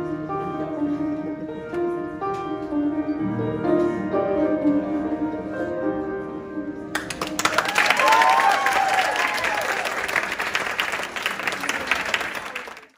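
Slow instrumental music plays and ends about halfway through, then the audience breaks into applause with a few cheers and whoops.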